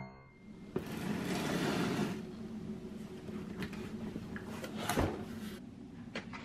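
Cardboard delivery box being handled and opened: cardboard sliding and scraping, then a few light knocks and taps, the sharpest about five seconds in.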